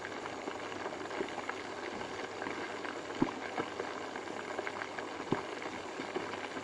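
Chicken pieces in rawon spice paste deep-frying in bubbling oil: a steady sizzle full of small crackling pops, with a sharper pop about three seconds in and another just past five seconds.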